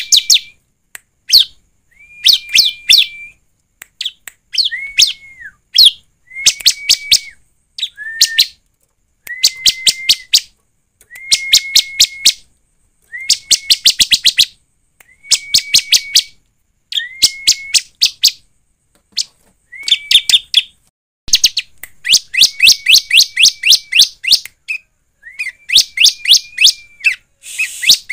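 Bar-winged prinia (ciblek) singing: repeated phrases, each a fast run of sharp ticking notes over a held high steady whistle, about one phrase every two seconds. About two-thirds of the way through, the phrases run together into a longer, denser burst of song.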